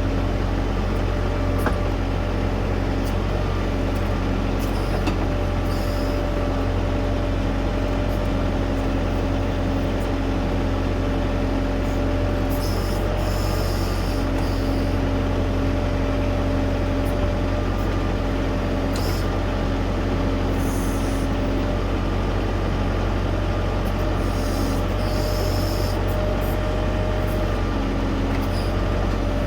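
Tractor-mounted backhoe at work: the diesel engine of an LS U5030 tractor runs steadily while its LS 3100-series backhoe is operated, with a pitched hum that comes and goes and short hissing bursts.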